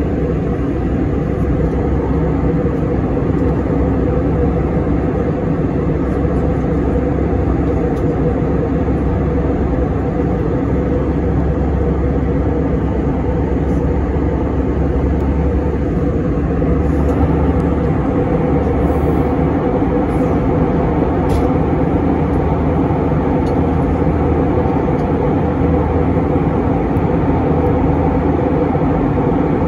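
Steady cabin noise of an Airbus A321 in cruise, heard inside the cabin: a constant low drone of jet engines and air rushing past the fuselage. The hiss grows a little brighter a bit past halfway through.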